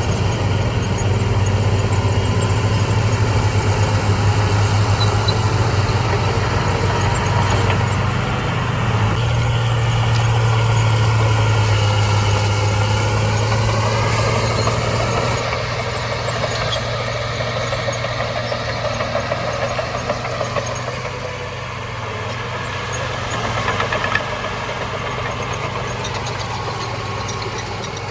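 Heavy diesel engine of earthmoving machinery running steadily, with a higher tone climbing about halfway through before easing and the sound getting slightly quieter.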